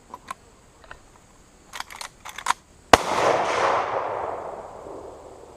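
A single rifle shot from a Marlin lever-action in .308 Marlin Express, about three seconds in, with its report echoing and dying away over the next two seconds or so. A few light clicks of the rifle being handled come just before it.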